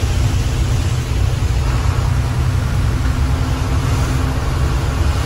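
Lorry engine running while driving, a steady low rumble with road noise from the wet road, heard from inside the cab.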